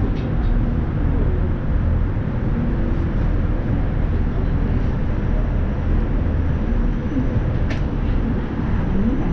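Steady low rumble of the Roosevelt Island Tramway cabin travelling along its aerial cables, heard from inside the cabin, with faint voices under it and a single brief click about three-quarters of the way through.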